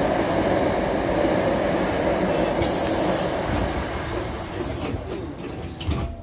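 Rumble of a train passing on the adjacent track, heard through an open train doorway. About two and a half seconds in a loud hiss starts as the double sliding doors close, and the doors meet with a thump near the end.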